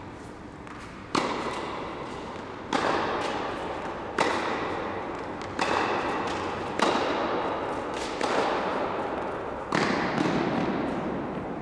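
Tennis balls struck hard with rackets, about seven sharp hits roughly every one and a half seconds, each one ringing on in the echo of an indoor tennis hall.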